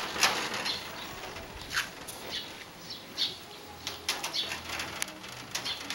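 A kitten's claws scrabbling and clicking on a metal security door and its mesh as it climbs: an irregular run of short scrapes and taps.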